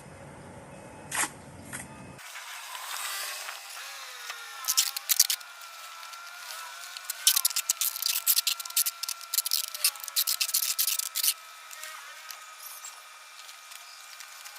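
Bursts of rapid, sharp clicks and scraping, the densest run lasting about four seconds in the second half.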